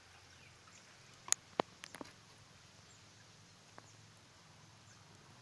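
A quick cluster of about five sharp clicks or snaps, roughly a second and a half to two seconds in, over a quiet background with a few faint, high, falling chirps.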